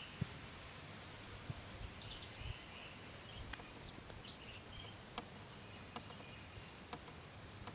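Faint outdoor ambience with scattered small bird chirps and a few soft ticks.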